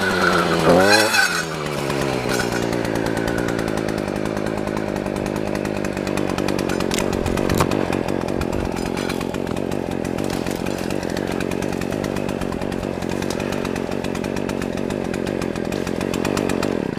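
An engine revs up about a second in, then runs at steady high revs, and cuts off suddenly near the end.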